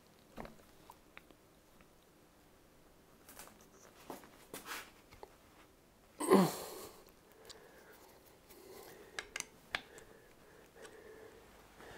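Light, scattered clicks and taps of hand tools and metal parts being handled during an Allen-bolt adjustment of a motor mount, with one brief louder sound that falls in pitch about six seconds in.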